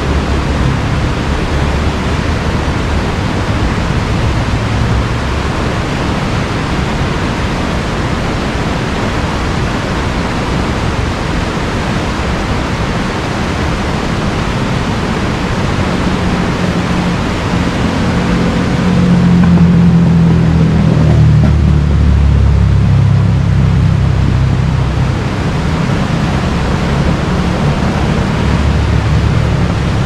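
River water rushing, a loud, steady, even hiss. About two-thirds of the way in, a deeper low rumble swells for several seconds and then eases.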